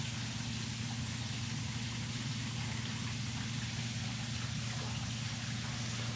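Steady water bubbling and trickling in a fish tank holding koi fry, over a constant low hum.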